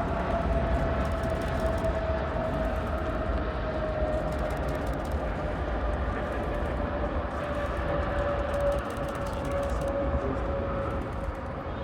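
Jet airliner engines running: a steady whine that slowly falls in pitch over a heavy rumble.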